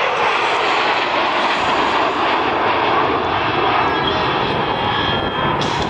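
F-16 fighter jets in flight: loud, steady jet engine noise.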